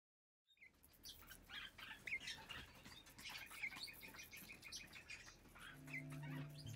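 Barred parakeet chirping softly with small clicks as it pecks at food, including a quick run of chirps about midway. Soft music with held notes comes in near the end.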